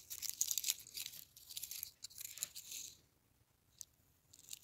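Foil wrapper of a Hershey's dark chocolate Kiss crinkling in the fingers as it is peeled back, a faint, quick crackling for about three seconds, then a couple of soft clicks near the end.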